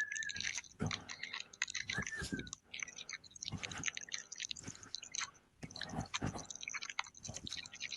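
Plastic DVD case and packaging being handled, giving irregular crinkling, crackling and clicking with short pauses.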